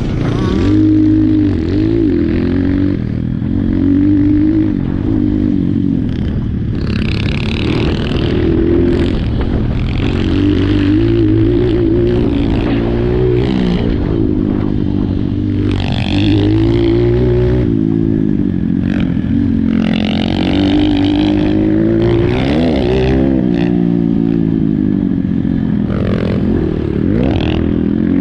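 Apollo RXF 150 pit bike's single-cylinder four-stroke engine being ridden, its pitch rising and falling again and again as the throttle opens and closes, with several short bursts of rushing noise and a loose clatter over it.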